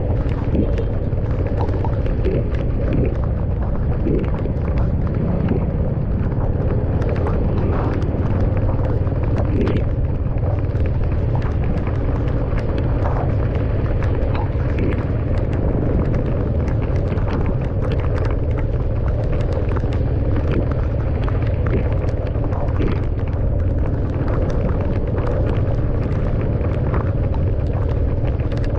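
Steady low rumble and hiss of a car driving on a wet road in the rain, with scattered sharp ticks throughout.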